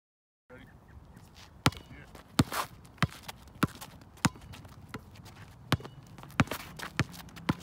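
Basketball dribbled on an asphalt court: sharp bounces at an uneven pace, about one to two a second, some louder than others.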